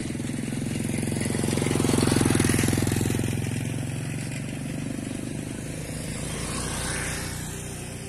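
A motor vehicle's engine droning past, growing louder to a peak about two seconds in and then slowly fading.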